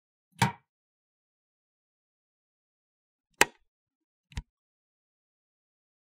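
Light switch clicks: one about half a second in, then two more a second apart in the second half, the last one quieter.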